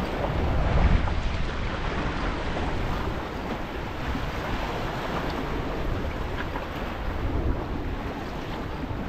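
Wind buffeting the microphone with a steady low rumble, over sea waves washing against the rocks.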